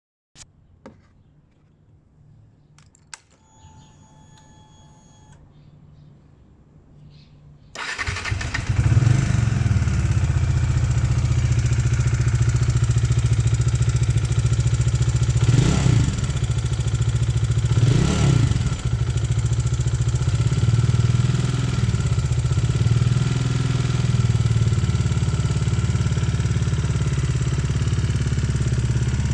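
Bajaj Dominar 400's single-cylinder engine being started about eight seconds in, after a few clicks and a short electronic tone, then running at idle with two brief revs. It makes an odd engine noise, which the owner puts down to cracked valve guides.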